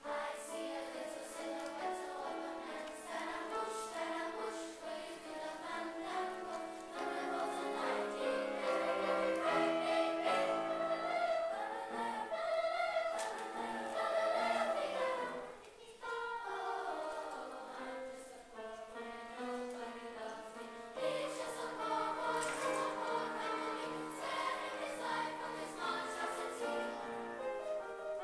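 Children's choir singing, several voices together in sustained lines, with a brief break between phrases about halfway through.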